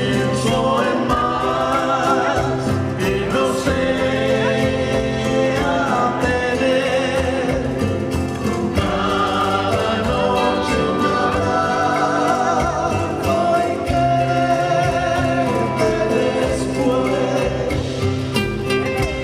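Live acoustic band music: acoustic guitars and upright double bass playing, with singing over them.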